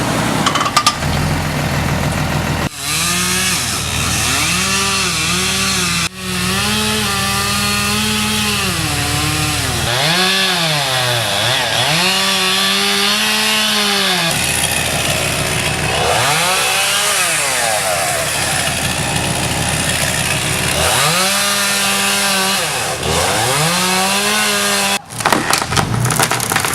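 Two-stroke chainsaw running at high revs while cutting into a tree trunk. Its note repeatedly sags as the chain bites into the wood and climbs again as it frees up, with a few abrupt breaks.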